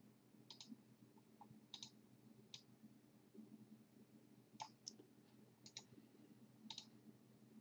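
Faint computer mouse clicks, coming in quick pairs about five or six times.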